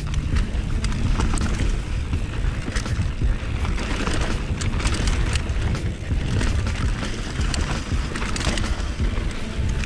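Polygon Siskiu T8 mountain bike rolling fast down a dry dirt trail: wind buffeting the helmet-mounted camera over the hiss of tyres on dirt, with frequent clicks and rattles from the bike and loose gravel.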